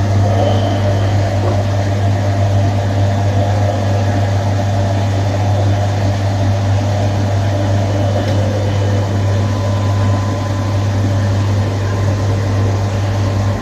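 Washing machine running with a loud, steady low motor hum that cuts off suddenly near the end.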